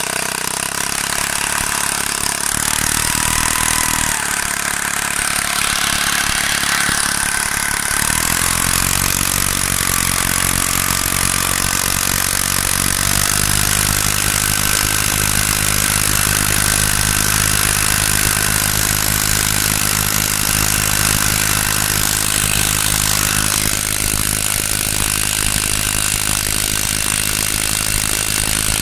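Small brush-cutter engine rigged as a boat motor, running steadily; its note shifts about eight seconds in and again around thirteen seconds, then holds.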